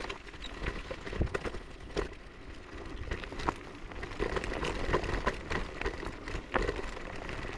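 Techlife X7S scooter jolting over a rough, muddy track: irregular clicks, knocks and rattles from the small wheels and frame over a low rumble.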